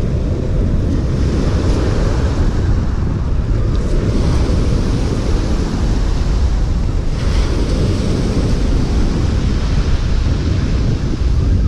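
Surf breaking and washing up a shingle beach, under a heavy rumble of wind on the microphone. One wash comes up louder about seven seconds in.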